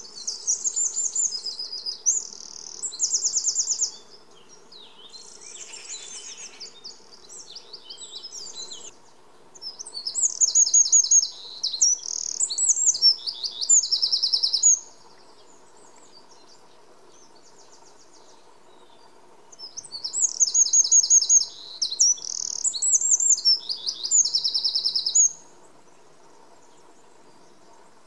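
Eurasian wren singing: three loud, high-pitched song bursts of rapid trills and warbles, each about five seconds long, separated by pauses, with fainter song in the first pause.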